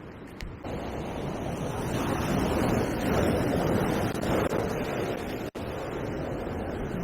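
Ocean surf breaking and washing over shoreline rocks, swelling up about half a second in and loudest in the middle, in a rough sea with strong waves.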